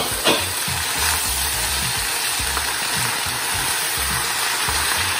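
Leftover turkey meat frying on high heat in an oiled pan with onions, ginger and garlic: a steady sizzle, with two light knocks right at the start.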